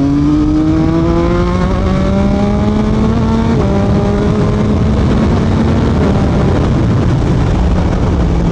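Yamaha MT-09's 890 cc inline-three with an Akrapovic full-system exhaust pulling hard under acceleration, revs rising steadily. About three and a half seconds in the pitch steps down as it shifts up, then keeps climbing while wind rush on the mic grows.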